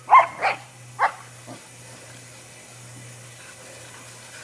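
Boxer dogs barking in play: three short, loud barks in quick succession, then a faint fourth about a second and a half in. A steady low hum continues underneath.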